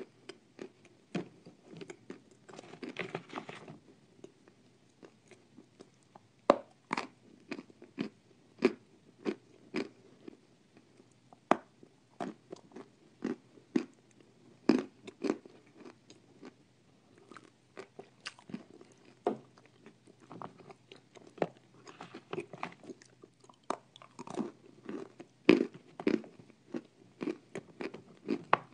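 Close-miked crunching and chewing of dry, chalk-like chunks: sharp crunches about one to two a second, with a longer crackling rustle about three seconds in.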